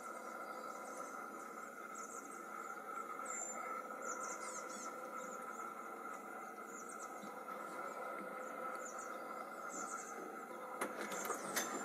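Faint, high-pitched chirps scattered irregularly over a steady low hum.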